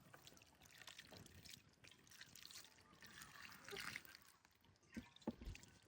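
Near silence, with a few faint scattered ticks and small knocks, the clearest two about five seconds in.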